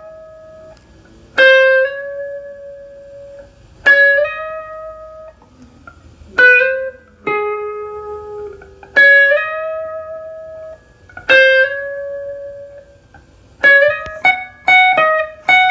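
Semi-hollow electric guitar playing a slow lead line high on the neck: single plucked notes, several slid into pitch, about every two and a half seconds, then a quicker run of notes near the end.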